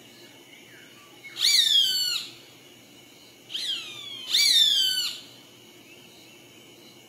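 Roadside hawk calling: two loud screams that fall in pitch, about two seconds apart, the second led by a short note.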